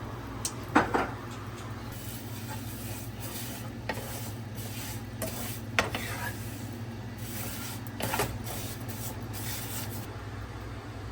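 A cooking utensil stirring and scraping in a pot, with a few sharp clinks against the pot, the loudest about a second in and others near four, six and eight seconds, over a steady low hum.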